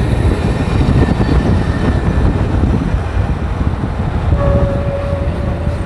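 Riding noise from a Honda Hornet motorcycle on the move: engine and wind rumble on the microphone with passing traffic. A steady single-pitched tone sounds for about a second and a half near the end.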